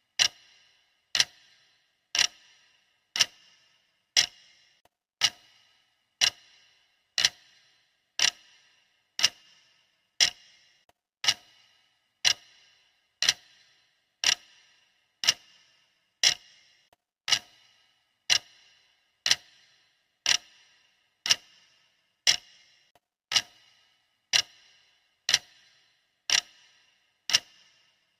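Clock ticking sound effect for a countdown timer: one sharp, even tick every second with a brief ring after each, steady throughout.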